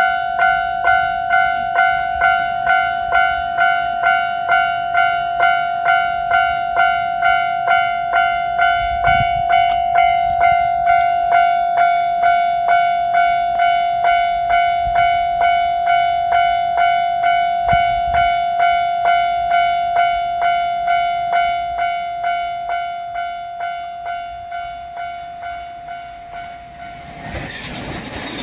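Japanese level-crossing warning bell (the electronic 'kan-kan') ringing in a steady rhythm, about one and a half strikes a second. It grows quieter in the last few seconds and stops just before the end, when the rushing noise of the approaching train takes over.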